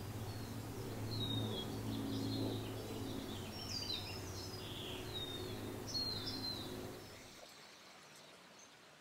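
Several short down-slurred bird chirps over a steady low background hum. The hum drops away about seven and a half seconds in, leaving only faint ambience.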